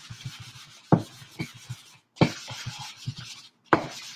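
A sanding block rubbed back and forth over a chalk-painted wooden rolling pin to smooth the paint: a dry, scratchy rasp in strokes. Three sharp knocks break in, about a second, two seconds and nearly four seconds in.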